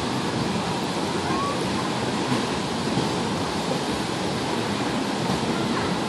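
Wave pool's artificial waves churning and breaking: a steady rush of water.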